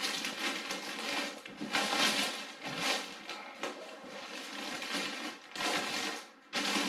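Clear plastic bag crinkling and rustling as gloved hands grip and pull at it around a heavy amplifier, in uneven surges.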